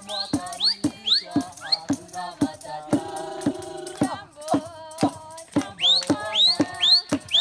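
Lodge kitchen staff singing a celebration song together as they come in, over sharp, evenly paced percussion beats about three to four a second. Quick high rising whistle-like chirps come in runs, strongest at the start and near the end.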